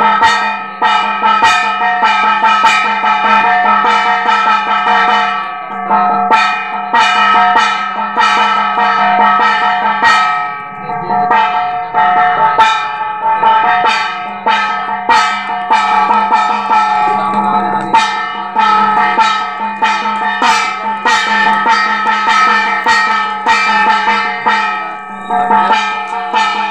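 Ritual bells and drums: bells ringing without pause, so their ringing tones hold steady, over a dense, fast run of drum and bell strikes.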